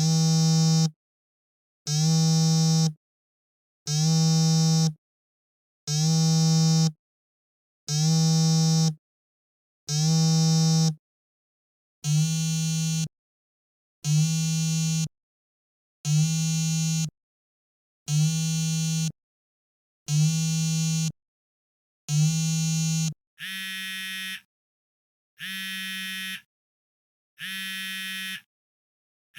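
Electronic telephone ringer buzzing in regular pulses, about one second on and one second off. Near the end the ring changes to a higher, thinner and quieter buzz.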